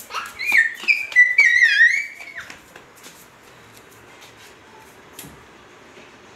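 A young child's high-pitched squeals: a few short ones, then a longer wavering one that ends about two and a half seconds in.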